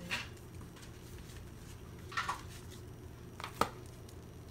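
Handling noise from albums and a photocard: a few brief rustles and a sharp light tap near the end, over a faint steady low hum.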